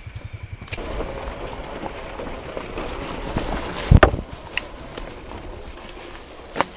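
Enduro dirt bike engine chugging at low revs with even pulses, then pulling harder under load up a rough trail. A single loud knock comes about four seconds in.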